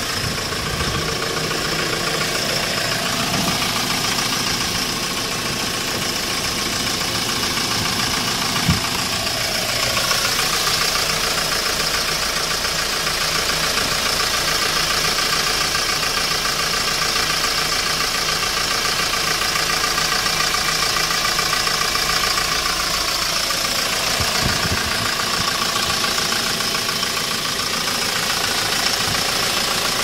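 Hyundai Porter II truck's diesel engine idling steadily, with one sharp click about nine seconds in.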